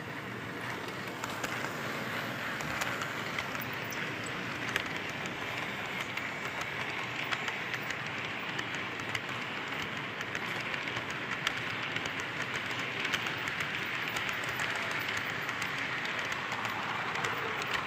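HO scale model train rolling past on the track: a steady whirring rumble from the locomotive and hopper cars, with many small clicks of wheels over the rail joints.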